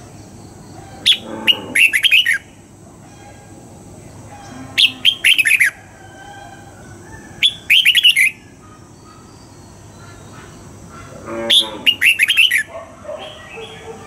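Red-whiskered bulbul singing: four short phrases of quick, clear whistled notes, a few seconds apart.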